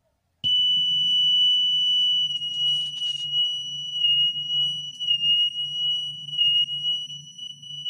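A 3,000 Hz test tone played from a record on a turntable, starting about half a second in, its pitch slowly wavering: audible wow, made by a finger dragging on the platter rim so it turns unevenly. A low hum runs underneath.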